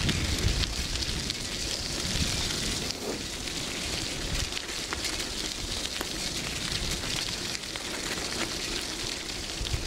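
Steady crackling and crunching of loose gravel on an unpaved road base, with wind rumbling on the microphone in about the first second.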